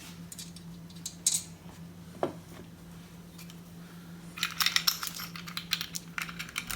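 Small steel nuts and washers clinking as they are handled and fitted onto the cylinder base studs: a few separate clinks, then a quick flurry of clinks about four and a half seconds in, over a steady low hum.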